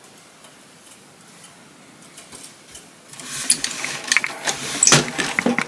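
Wooden table loom being worked: after a few quiet seconds with faint ticks, a dense run of clattering and clicking starts about three seconds in and lasts to the end.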